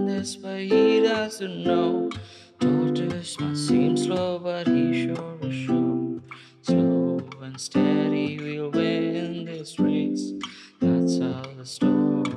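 Acoustic guitar strummed in a slow, even rhythm, a new chord struck about once a second and left to ring.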